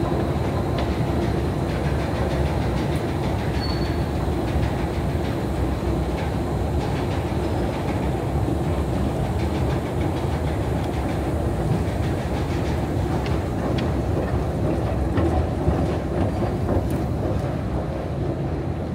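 Long subway-station escalator running, a steady mechanical rumble with a constant low hum and scattered faint clicks from the moving steps; the rumble eases a little near the end.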